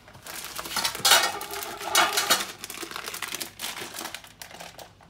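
Dry uncooked rice grains rattling and shifting as a glass cup is scooped through them in a metal pot, loudest about one and two seconds in.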